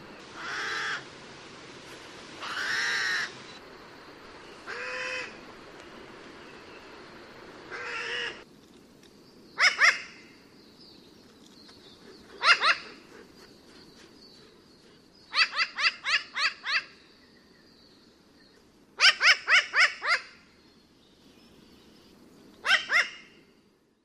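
New Caledonian crow calling. First come four drawn-out calls a couple of seconds apart, then short sharp calls given singly, in pairs and in quick runs of four or five.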